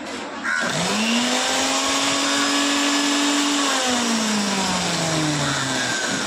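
Heavy-duty belt-driven 2-in-1 mixer grinder switched on and running on test after its power cable was replaced. The whir starts suddenly about half a second in, and its hum rises as the motor spins up, holds steady, then falls away as the motor slows down from about four seconds.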